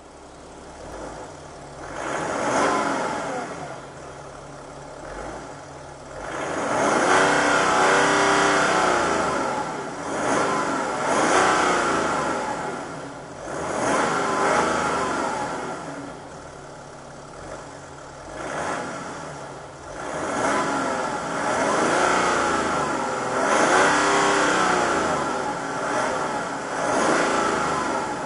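BMW X6 M50d's 3.0-litre tri-turbo straight-six diesel, set in Sport mode, revved while standing in Park/Neutral: about eight rev blips rising and falling, the longest held for a few seconds about a quarter of the way in, each capped at the 4000 rpm limit for a stationary car.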